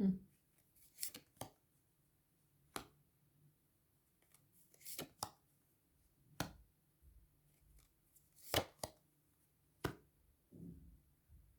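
Tarot cards being handled and laid out on a table: a string of about ten sharp, irregular snaps and clicks, with a soft thump at the start and another near the end.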